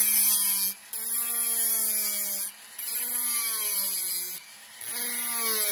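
Wecheer 1/8 hp flexible-shaft rotary carver driving a medium-diameter carbide burr into wood. It makes about four quick cutting passes, each a motor whine under a rasping hiss, and the pitch sags a little as the burr bites.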